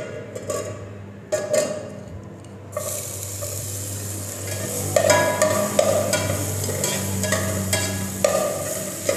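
Chopped green vegetables sizzling as they go into hot olive oil in an aluminium pot, the sizzle starting about three seconds in. A metal slotted spoon stirs them, scraping and clinking against the pot several times.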